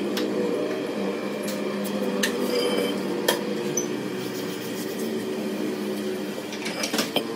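Workshop noise: a steady machine hum with scattered sharp metallic clinks and taps, the loudest about three seconds in and another pair near the end.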